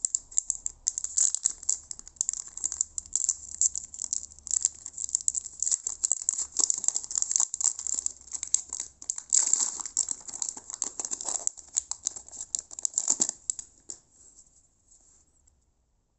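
Foil wrapper of a trading card pack crinkling as it is torn open and the cards are pulled out. The crackling is dense and uneven, with louder bursts past the middle, and stops about two seconds before the end.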